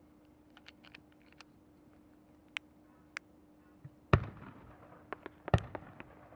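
Fireworks: two deep, loud booms about a second and a half apart, among scattered small sharp pops and clicks.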